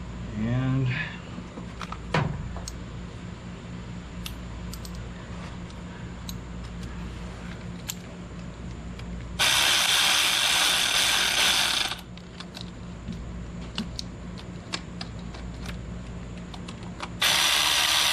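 Cordless power driver running Torx screws in to seat a new throttle position sensor. It makes two steady runs: one of about two and a half seconds midway through, and a shorter one near the end. Light tool clicks come in between.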